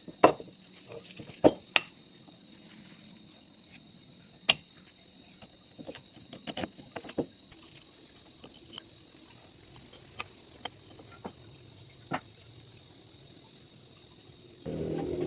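Scattered sharp knocks and clicks over a steady high-pitched tone; shortly before the end a low hum starts.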